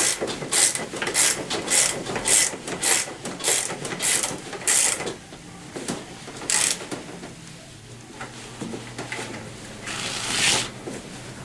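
Ratchet wrench clicking as the scooter's front axle bolt is tightened down, a steady run of strokes a little under two a second. About five seconds in the strokes stop, with one more around the middle and a longer run of clicks near the end.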